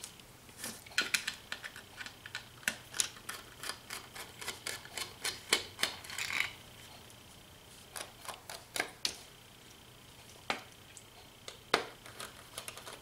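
Quick, irregular small metal clicks and taps of a precision screwdriver's T7 Torx bit working the tiny screws in a hard drive's metal cover. The clicks come thickly for the first half, then more sparsely.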